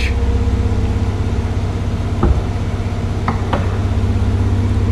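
A steady low hum, with a light knock about two seconds in and two faint clicks a second later, as the front trunk lid of a Porsche 911 is handled.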